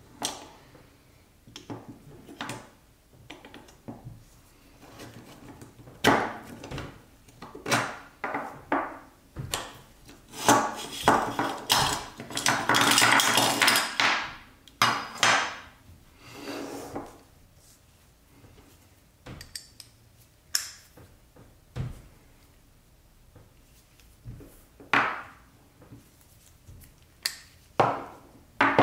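Rusty steel sockets being slid off a metal socket rail and set down one by one on a work mat: a string of sharp metal clicks and clacks, with a longer rattling scrape partway through.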